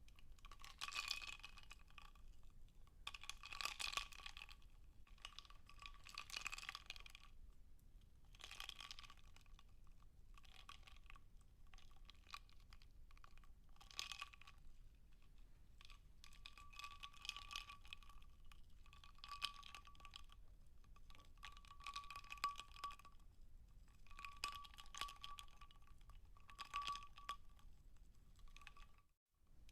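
Ice cubes crackling in a glass of water. The sound comes in faint, irregular bursts of fine crackling and ticking every few seconds, with a light glassy ring.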